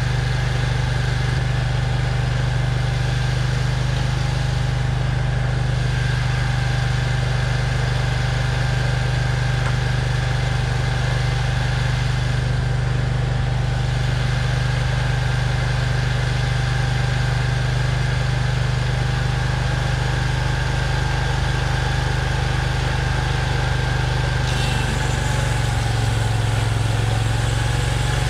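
Portable bandsaw sawmill's engine running steadily. Near the end its pitch dips for a couple of seconds and then comes back up.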